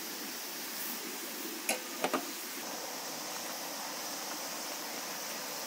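Steady background hiss with a few short, sharp clinks a little under two seconds in and again just after two seconds.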